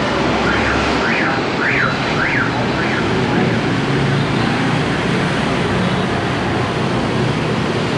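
Busy street traffic: a steady wash of motorbike and car noise. In the first three seconds an electronic wail rises and falls about five times over it.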